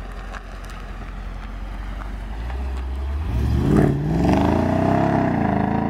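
Mercedes SL55 AMG's supercharged V8 at a low rumble, then revving up as the car pulls away and accelerates down the road. The engine note climbs to its loudest about four seconds in and stays up.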